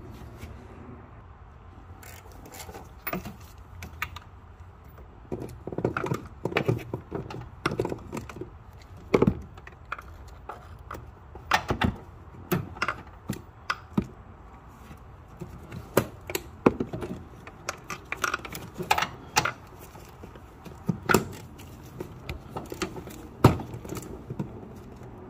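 Wrench or ratchet working the 16 mm nuts on top of a front air-strut mount: irregular sharp metal clicks and clinks, a few at a time with short pauses, over a faint steady low hum.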